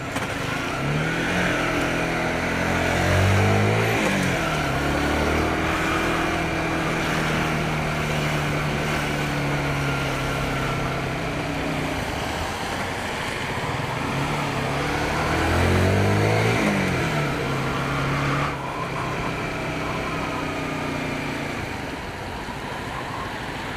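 Motorcycle engine pulling away and accelerating, its pitch climbing and dropping through gear changes a few seconds in and again about two-thirds of the way through, running steadily in between. Wind and road noise rush underneath throughout.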